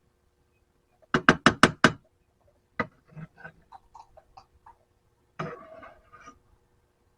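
Metal lead-casting tools being knocked: a quick run of five sharp knocks, then a single knock and scattered lighter clicks, and a short clatter near the end.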